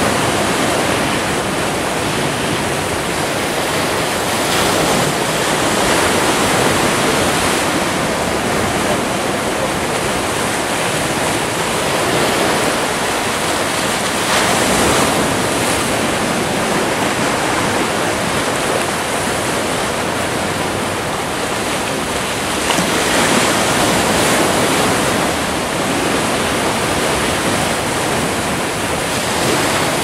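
Sea surf washing in among boulders on a rocky shore: a steady rush of waves that swells gently every several seconds.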